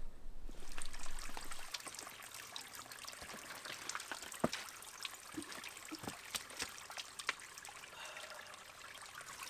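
Spring water trickling from a wooden log spout and splashing onto rocks, with many sharp drips.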